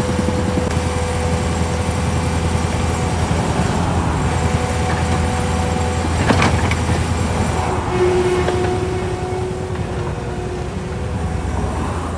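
Caterpillar skid steer loader's diesel engine running steadily under work, with a sharp clank about six seconds in.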